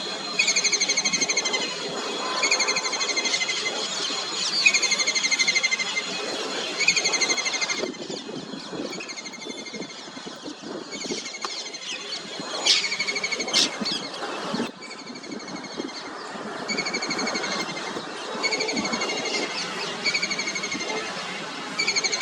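A kingfisher calling a repeated rattling trill, each call about a second long and coming about every second and a half. The calls pause for several seconds midway, where a few sharp clicks sound, then resume. A steady background noise runs underneath.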